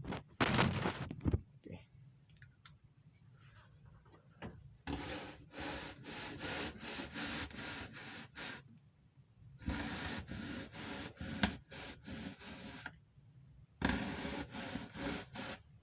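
Rapid rasping, scraping strokes of a hand cut through material for a UV lamp fitting in an air handler, in three runs with short pauses between them.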